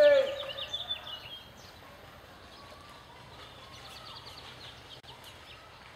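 Quiet woodland ambience with birds chirping in rapid, evenly spaced high trills that come and go, after a shouted voice cuts off at the start.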